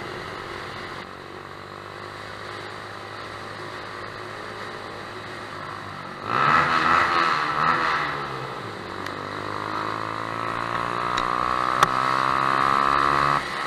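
2011 Yamaha YBR125's single-cylinder four-stroke engine through a Lextek stubby aftermarket exhaust, heard from the rider's seat. It runs steadily at first, then about six seconds in, inside a road tunnel, it gets much louder and is revved up and down. It then pulls through a gear with the pitch rising steadily until it cuts off near the end.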